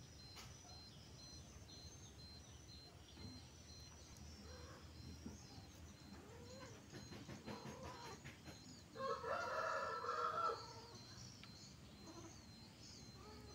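A rooster crows once, about nine seconds in, a call lasting under two seconds that is the loudest sound; before it only faint background with scattered small clicks.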